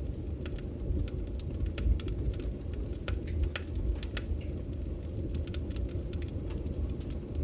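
Campfire crackling: irregular sharp pops and snaps from burning wood over a steady low rush of flame.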